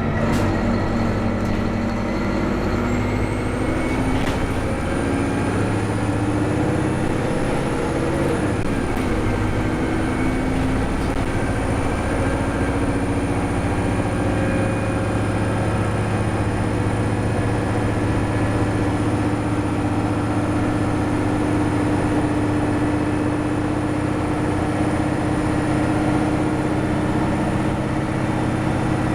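Turbocharged diesel engine of a NABI 436 transit bus pulling at speed, heard inside the bus. Its turbo whistle rises in pitch over the first few seconds, then holds a steady high whine over the engine drone and road noise.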